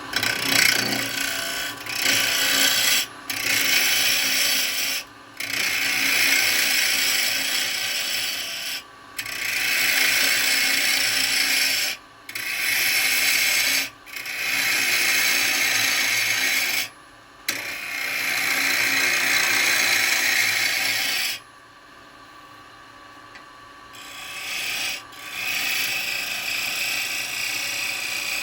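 Turning tool cutting into a dry wooden bowl blank spinning on a wood lathe: a rasping, scraping noise in repeated passes of a few seconds each, with brief breaks as the tool lifts off, and a longer pause in the last third, over the steady hum of the running lathe.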